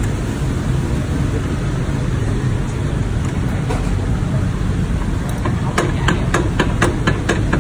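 Steady low rumble of passing road traffic. Near the end comes a quick run of about eight sharp clicks, several a second.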